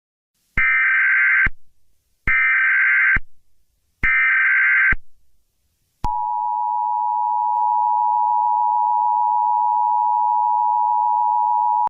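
Emergency Alert System tones: three short data bursts of the digital SAME header, evenly spaced, then the steady two-tone EAS attention signal held for about six seconds.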